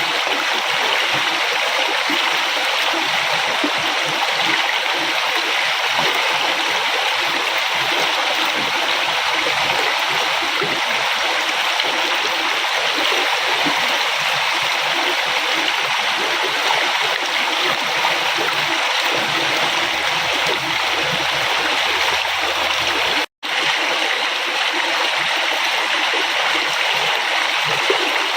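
River water flowing, a steady even rush. About three-quarters of the way through it cuts out for a split second, then resumes.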